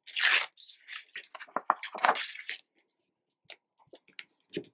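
Sheets of patterned scrapbooking paper rustling and sliding as they are handled and laid down on a cutting mat, in short irregular bursts, the loudest right at the start.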